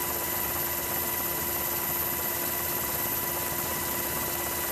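MH-60R Sea Hawk helicopter heard from inside the cabin in flight: a steady, even rush of turbine and rotor noise with a few steady whining tones running through it.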